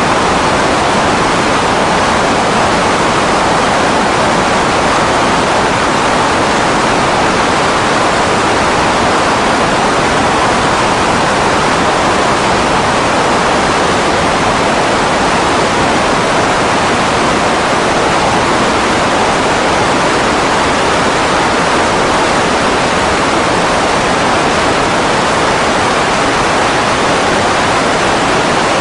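Loud, steady rushing noise of the Grumman G-164 Ag Cat seaplane's engine and propeller wash, with no pitch changes or breaks.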